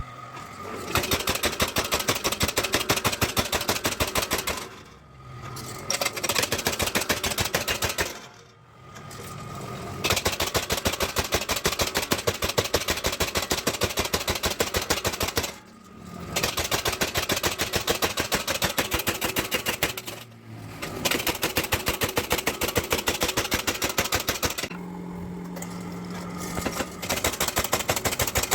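Mechanical power hammer striking steel in rapid, evenly spaced blows, in long runs broken by short pauses, with the hammer's motor humming in the gaps.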